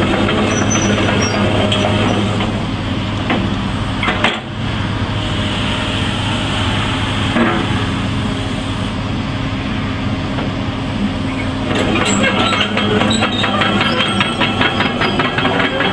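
Komatsu PC200LC-8 excavator's 6.7 L six-cylinder diesel engine running steadily. About twelve seconds in, a fast rattling clatter joins the engine sound.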